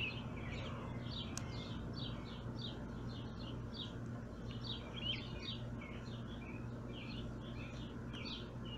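Small birds chirping steadily, a quick run of short chirps, over a faint low steady hum.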